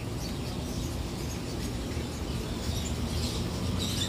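Caged birds chirping faintly over a steady low rumble of street noise, the chirping getting busier near the end.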